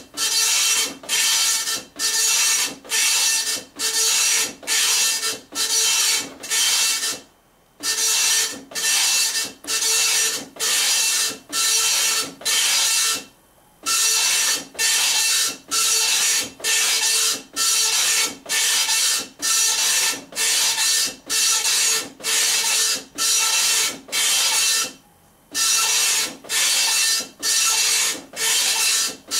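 Dot-matrix printer printing a graphic: the print head makes a buzzing, rasping pass just under twice a second, line after line, with a brief stop three times.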